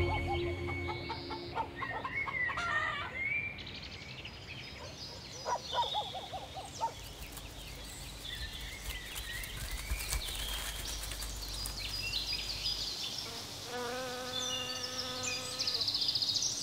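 Dawn chorus of woodland birds: many short chirps and whistling calls overlapping, with a lower fluttering call in the middle and a steadier, lower call lasting about two seconds near the end.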